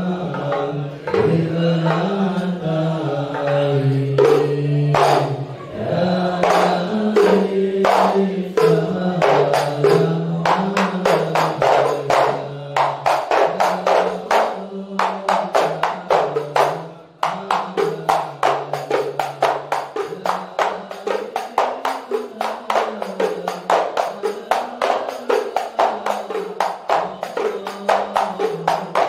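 A man's voice chanting a devotional sholawat melody through a microphone. Hand-struck frame drums (rebana/terbang) join in, with scattered strokes at first, then a fast, steady beat in the second half.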